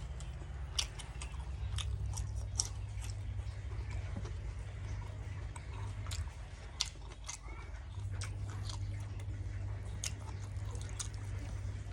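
A person chewing food close to the microphone, with wet mouth smacks and scattered sharp clicks, over a steady low hum.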